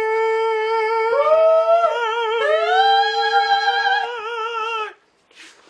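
Two men's voices holding long, loud high notes together, one on a steady pitch while the other slides up to a higher note and holds it with a wobble. Both stop abruptly about five seconds in, and a short sharp sound follows near the end.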